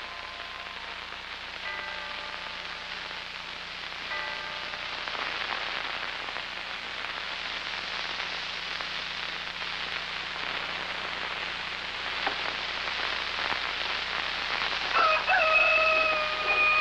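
An even hiss that thickens after the first few seconds, with a few short chime-like notes in the first four seconds. Near the end comes a long, loud animal call, held on one pitch and dipping down as it fades.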